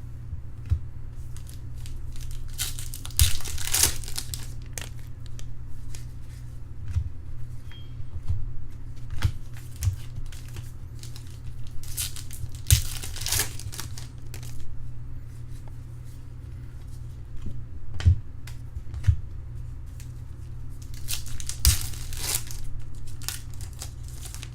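Foil wrappers of trading card packs being torn open and crumpled, with cards handled and shuffled in between. The tearing comes in three main bouts, spread about nine seconds apart, over a steady low hum.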